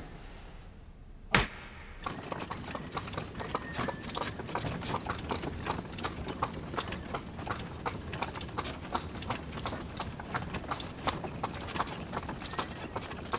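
One sharp knock about a second in, then a horse's hooves clip-clopping on asphalt in a steady, even rhythm as it pulls a carriage.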